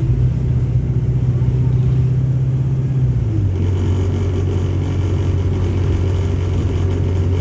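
Wright StreetLite DF single-deck bus running, heard from inside: a steady low engine drone whose note drops about halfway through.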